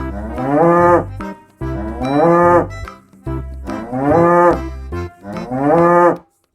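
Cow mooing four times, long calls each dropping in pitch at the end.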